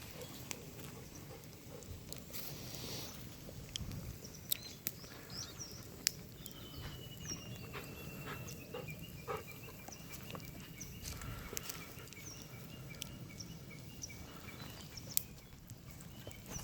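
Wood fire crackling, with a few sharp pops standing out, while small birds chirp in the background.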